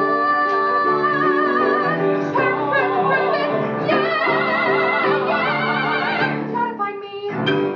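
A woman sings a long held note with wide vibrato over piano accompaniment, the closing note of a musical-theatre song. The music ends about seven seconds in, with a short last chord.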